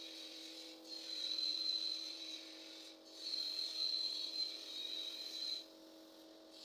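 Flushing gas hissing with a thin, steady whistle as it blows through a deep freezer's refrigeration tubing. It comes in three spells, breaking off briefly about a second in and again near three seconds, and stopping for the last second. A faint steady hum runs beneath.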